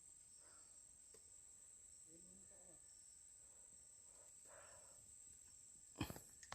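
Faint, steady high insect drone of crickets in the forest. About six seconds in comes a sharp short knock followed by a couple of smaller clicks.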